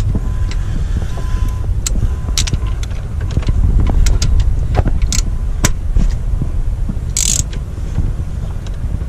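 Scattered metallic clicks and knocks of hand tools working a spark plug in a 2001 Pontiac Sunfire's 2.2L engine, over a steady low rumble, with a brief hissing burst about seven seconds in.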